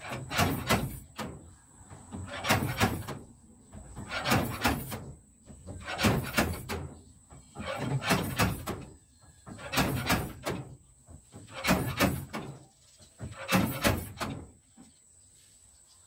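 Slide-hammer stud dent puller working a dented steel car bonnet: eight rounds of sharp metallic clacks, one about every two seconds, as the hammer is snapped back to pull the dent up.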